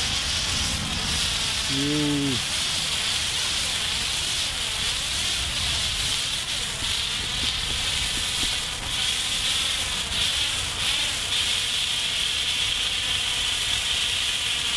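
Red hand-held signal flare burning with a steady, even hiss.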